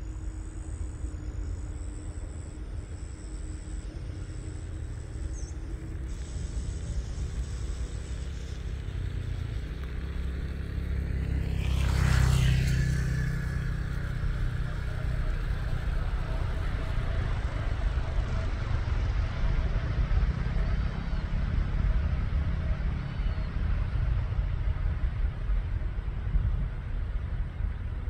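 Boeing 787 jet engines at take-off power during the take-off roll: a steady deep rumble that swells into a brief loud rush about twelve seconds in, then carries on with a faint whine over the rumble.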